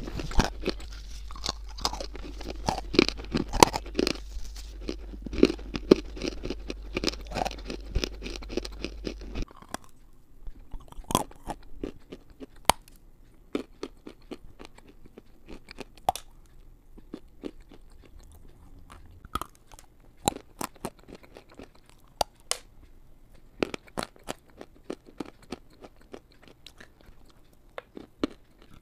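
Close-miked crunching and chewing of chunks of edible clay. For the first nine seconds or so the bites are dense and loud over a low steady hum. After that the crunches of bentonite clay are quieter and sparser, a few sharp snaps every second or two.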